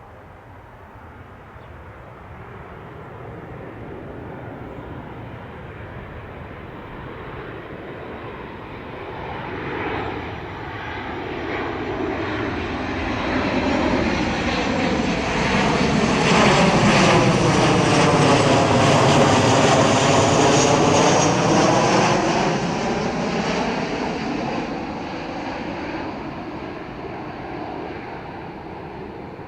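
Jet airliner flying past: its engine roar swells over several seconds, is loudest a little past the middle, then fades away.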